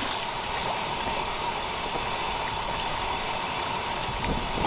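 Strong wind blowing steadily, a constant rushing noise with low rumble.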